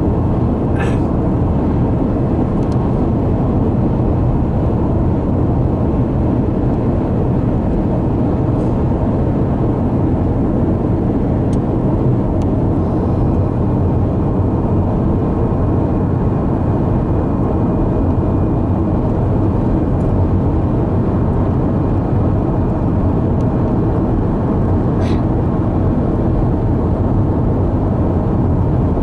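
Car cruising at highway speed, heard from inside the cabin: a steady low rumble of tyres on the road and the engine.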